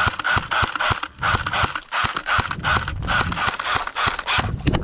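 Close rustling and scraping in a rough rhythm of about two a second, scattered with sharp clicks and crackles: clothing and gear brushing through undergrowth as a player moves on foot.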